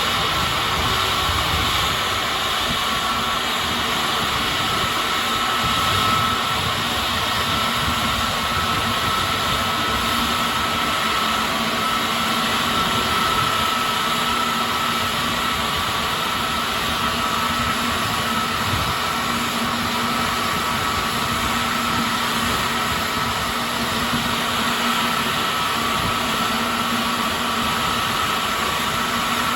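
Airbus A321neo jet engines running steadily, with a constant high whine over a broad rush of engine noise.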